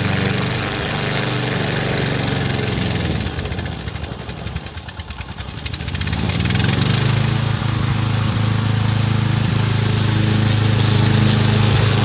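Engine of a hybrid remote-control tracked mower running steadily. About four seconds in its speed drops with a pulsing beat, then picks back up about six seconds in and runs steady again.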